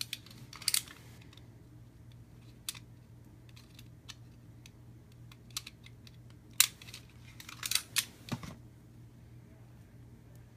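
Board game cards and plastic packaging being handled on a table: scattered light clicks and taps, with a few brief rustles, the sharpest click about six and a half seconds in.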